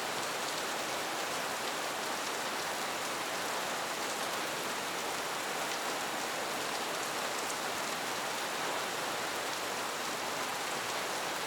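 Heavy rain coming down steadily: an even hiss with faint scattered drop ticks.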